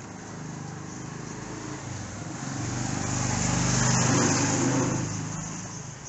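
A motor vehicle driving past on the street: its engine and tyre noise grow louder, are loudest about four seconds in, then fade away.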